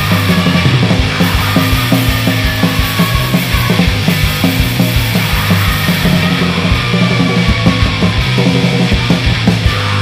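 Hardcore punk song: distorted guitar and bass with fast, dense drumming, loud and unbroken.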